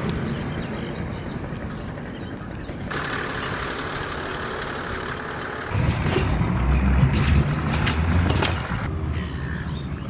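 An engine running, with wind noise, across a few abrupt edit cuts. About six seconds in it turns louder and deeper for a couple of seconds.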